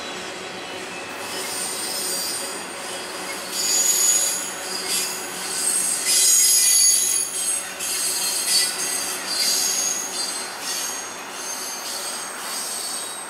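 Steel wheels of a passing intermodal freight train's flatcars squealing on the rail. The high-pitched squeal swells and fades repeatedly, loudest about four and seven seconds in, over the steady rolling rumble of the cars.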